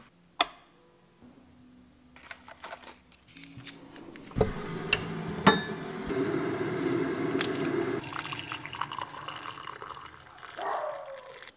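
Hot water poured from an electric kettle into a ceramic mug, with a few sharp clicks and knocks from the kettle being handled. The water noise builds about four seconds in and tapers off near the end.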